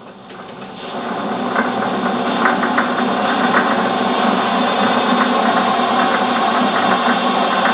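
PowerED PBL400 mini lathe running in reverse under its variable-speed motor, unloaded. The motor and spindle drive hum with a steady whine, growing louder over the first second and a half as the speed is turned up, then holding steady.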